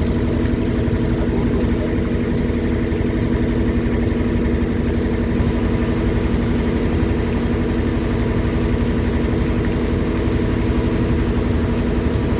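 River boat's engine running steadily with an even, unchanging hum.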